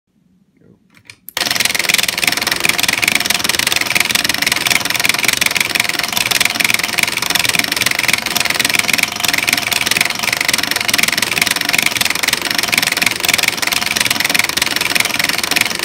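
A button-pressing robot's actuator hammering an arcade-style push button, a fast, continuous clatter of presses averaging about twenty a second. It starts suddenly about a second in.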